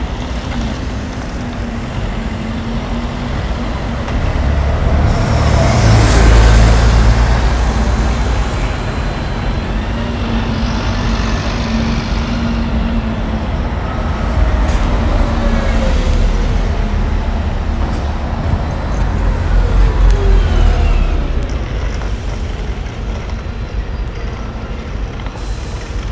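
Steady city-centre traffic: cars and double-decker buses running past, with a constant engine hum. It swells louder twice, about six and about twenty seconds in, as heavy vehicles go by.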